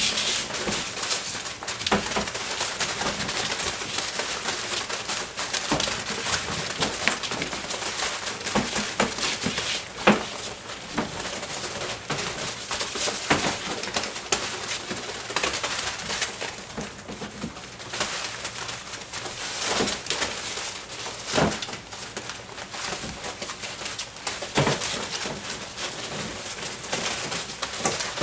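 Doberman puppies scrambling and playing in wood shavings, a constant rustling and scratching with small puppy vocal noises mixed in. A few sharper knocks stand out, the loudest about a third of the way in and again past two-thirds.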